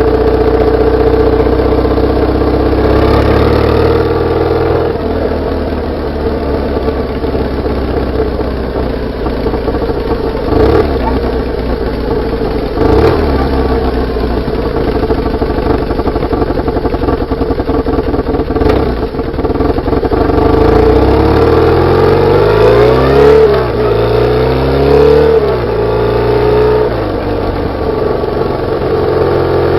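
BMW R850R's air/oil-cooled boxer twin heard through its exhaust while riding: a steady engine note for most of the time, then several quick rises and falls in pitch near the end as it revs up and drops back through gear changes. A few sharp knocks come through in the middle.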